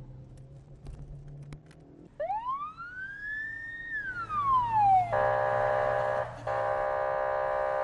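Police car siren starting about two seconds in with one wail that rises and then falls. It then switches to a steady, buzzing horn tone, sounded twice with a short break between, signalling a driver who failed to stop.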